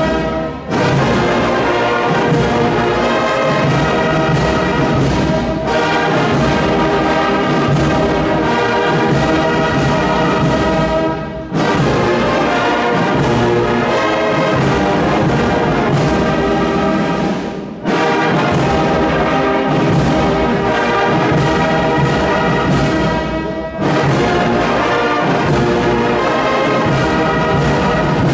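Brass band music with several instruments sounding together, played in long phrases with brief pauses between them.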